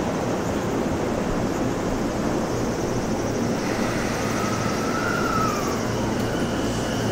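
Electric commuter trains at a station platform: a steady rumble of a train running on the tracks, then from about four seconds in a high whine that rises and then falls as an E217-series EMU pulls in to stop.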